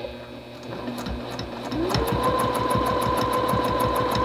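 Juki TL-2010Q home sewing machine stitching through a quilt sandwich with a ruler foot. It starts slowly, then about two seconds in its motor whine rises and settles into a fast, steady run of needle strokes.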